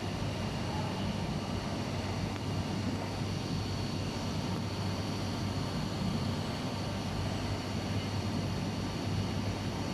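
Hurco VM10U five-axis CNC milling machine cutting the blade fillet of a small compressor impeller: a steady machine hum with a constant high spindle whine.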